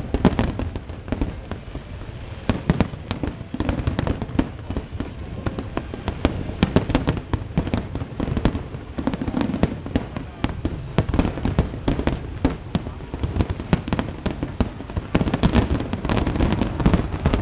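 Fireworks display: a dense, unbroken barrage of bangs and crackles, several reports a second.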